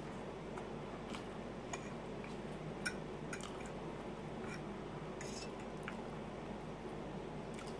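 Quiet eating sounds: soft wet chewing and mouth noises, with scattered light clicks of a metal fork against a plate, over a steady low room hum.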